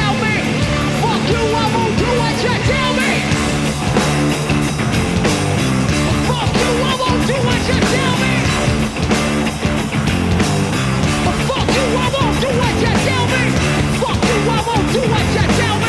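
Rock music soundtrack with a steady drum beat and guitar.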